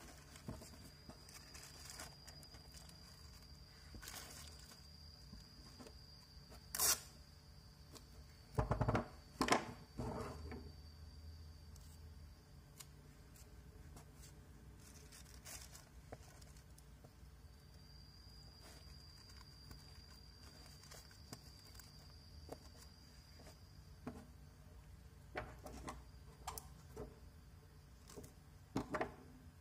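Handling noise from a plastic-covered cardboard box being moved on a table: crinkles, rustles and knocks, loudest in a short cluster about a third of the way in and again in the last few seconds. A faint, steady high tone is heard for the first seven seconds and again a little past the middle.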